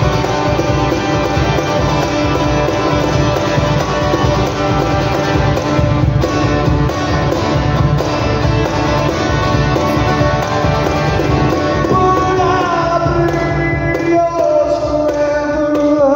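Live acoustic guitar and cajon playing a song together, the guitar strummed and the cajon struck by hand. About three quarters of the way through, a man's singing voice comes in over them as the percussion thins out.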